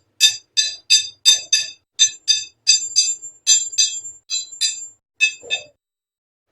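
Hammer striking iron in quick repeated blows, about three a second, each blow ringing briefly with the same metallic pitches; the blows stop a little before the end.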